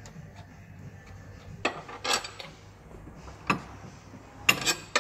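Metal clinks and clanks of steering-kit parts and a wrench being handled and fitted: about six sharp separate knocks, the loudest a quick cluster of three near the end.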